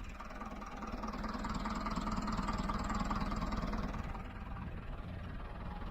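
A vehicle engine idling steadily, swelling slightly for a second or two in the middle.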